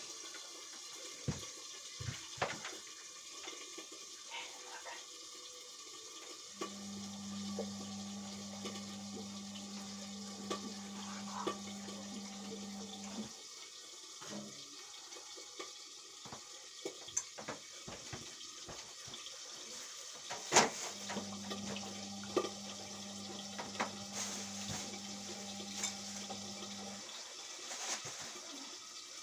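Indesit washing machine mid-wash: water sloshing and running in the drum with scattered clicks, while the drum motor hums in two spells of about six seconds each with a pause between as the drum turns. One sharp knock stands out about two-thirds of the way through.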